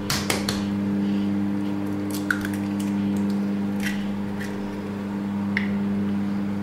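An egg is cracked against the rim of a steel pot and dropped onto flour, heard as a few sharp taps and shell clicks, the sharpest a little over two seconds in. A steady low electrical hum lies underneath.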